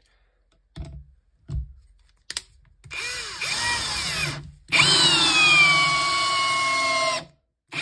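Parkside Performance PABSP 20-Li C2 20 V brushless cordless drill driver, on its second (high) speed, driving a long wood screw: a short run about three seconds in, then after a brief pause a longer run of about two and a half seconds whose whine drops slightly in pitch under load, stopping abruptly near the end.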